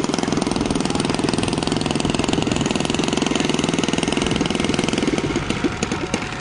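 Glow engine (an OS .120) of a quarter-scale Balsa USA Cub model floatplane running steadily as the plane taxis on the water. It is throttled back about five seconds in and slows to separate, spaced firing beats at idle.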